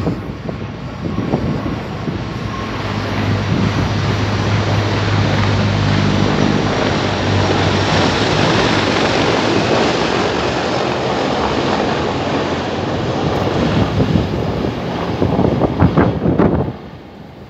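Firefighting helicopter flying overhead: a loud, steady rotor and engine noise with a low hum for a few seconds in the first half. Wind buffets the microphone, and the sound drops off sharply just before the end.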